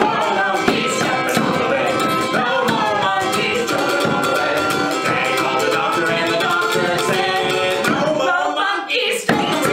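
Live acoustic song: a small stringed instrument strummed and a frame drum struck with a beater, with a man singing over them. The music breaks off briefly near the end.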